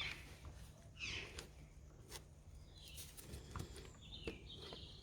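Faint scattered clicks and small knocks of parts being handled while a new plastic coolant reservoir is fitted.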